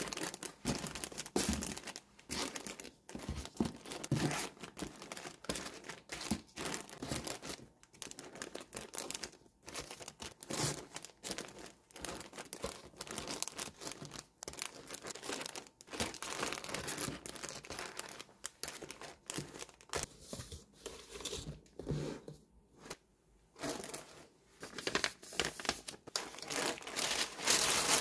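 Clear plastic packaging bags crinkling and rustling as bagged fabric scrunchies are pressed and arranged inside a cardboard box, in irregular handling bursts with a short lull about three quarters of the way through. Right at the end, a louder rustle of tissue paper being spread over the box contents.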